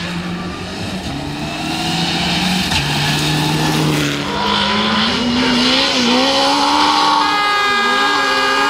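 Rally cars at full throttle on a gravel stage. First a Mitsubishi Lancer Evolution's engine holds a steady note broken by short gaps, then after a cut another rally car's engine note climbs and wavers at high revs.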